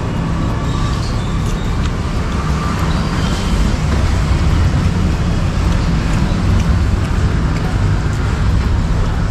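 Road traffic noise with a vehicle engine's steady low rumble close by.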